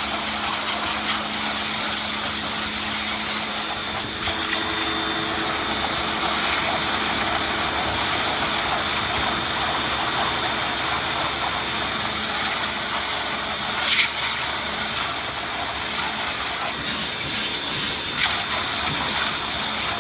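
HGTV Home 1750 PSI pressure washer running steadily: its motor and pump hum under the loud, even hiss of the high-pressure water jet spraying algae off a fountain.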